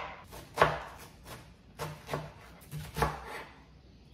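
Kitchen knife chopping cabbage on a chopping board: about eight uneven strokes, each a sharp knock of the blade on the board.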